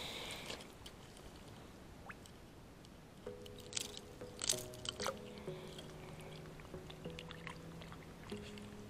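Soft background music, its held melody notes coming in about three seconds in, over light water splashes and drips from the fish and line being handled at the water's surface.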